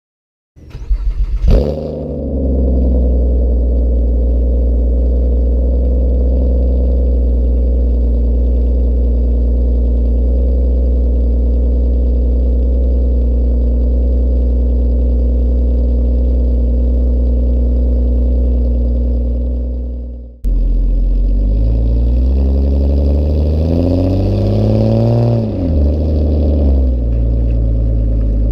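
Ford Fusion Sport's 3.5-litre Cyclone V6 through Magnaflow mufflers with the resonators deleted, starting up with a short crank and flare, then settling into a steady idle. After a cut about twenty seconds in it idles again and is revved once, the pitch rising and falling, before dropping back to idle.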